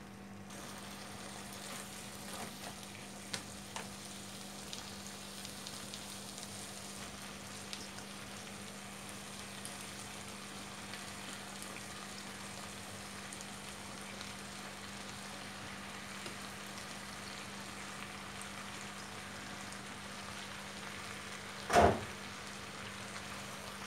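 Chicken and bell pepper stir-fry sizzling steadily in a frying pan, over a constant low hum. A few light clicks come in the first few seconds, and a loud short knock comes near the end.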